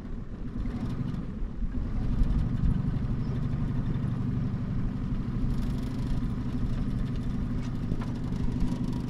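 Small outboard boat motor running steadily at low speed, a constant low hum pushing the boat along.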